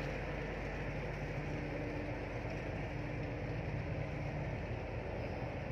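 Sand barge's diesel engine idling, a steady low hum that holds an even pitch throughout.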